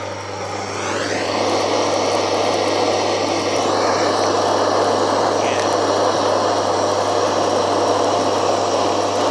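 Dishwasher pump induction motor humming steadily on mains power with its rotor locked, while a gas blowtorch's loud hiss rises over about a second near the start and then holds steady as it heats the windings.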